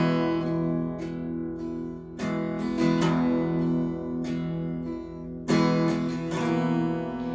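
Acoustic guitar strummed slowly with no voice: a handful of chords struck and left to ring between strokes.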